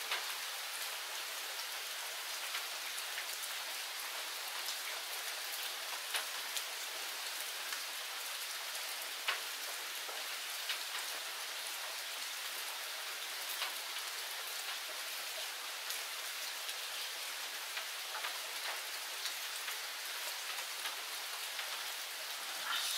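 Steady rain falling on forest leaves and ground: an even hiss with occasional sharper ticks.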